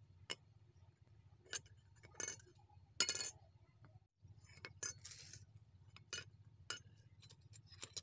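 Rusty metal door hinges clinking and knocking on a concrete floor as they are handled and set down: a scattering of short light clinks, loudest about three seconds in.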